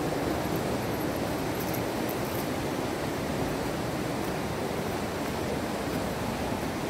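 A steady, even rushing noise with no pauses or gusts.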